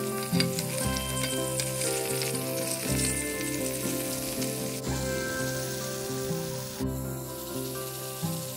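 Stuffed bitter gourds sizzling as they fry in oil in a frying pan, over background music of held chords that change about every two seconds.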